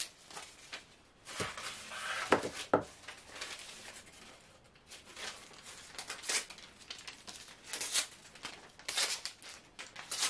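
Paper tape pulled from a roll, torn into strips and handled, heard as irregular rustling and crinkling with a few short rips, while a damp print is taped down to a board to dry flat.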